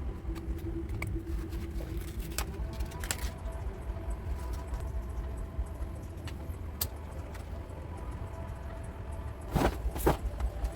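Scattered light clicks and small metallic clinks of a laptop case, screws and tools being handled, over a steady low rumble. Two louder scraping knocks come near the end.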